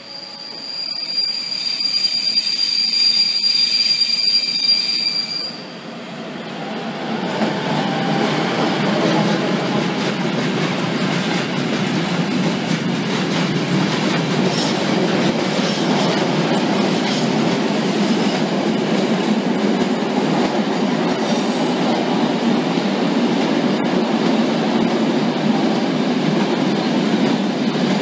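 Freight train running through a station. For the first five seconds or so there is a steady high wheel squeal, then the long, even rolling and clatter of freight wagons, tank cars and empty stake wagons, passing close by.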